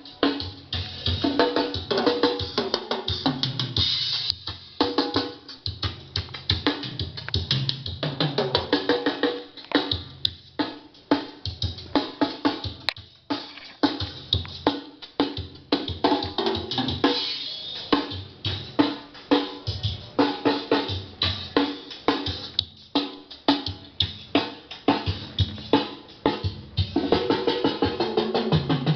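Music with a busy drum kit beat, many quick strikes a second with no break.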